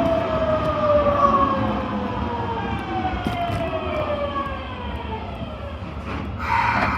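Osaka Metro Tanimachi Line 22 series subway car's traction motors whining as the train slows, a stack of shrill tones falling steadily in pitch. A short burst of hiss comes near the end.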